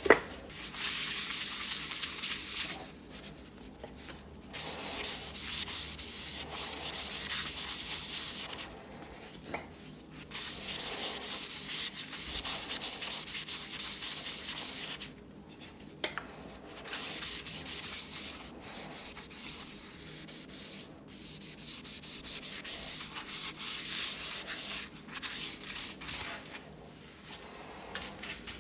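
A cloth rubbed against the inside of a brown mallee burl and epoxy resin bowl turning on a lathe, giving a hissing, scratchy rub in repeated passes of a few seconds each with short pauses between. A single sharp knock sounds right at the start.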